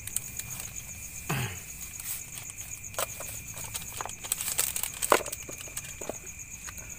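Crickets and other night insects trilling steadily, with a high pulsing chirp, while a paper wrapper crinkles and rustles in the hands. A short falling squeak about a second in and a sharp crackle about five seconds in.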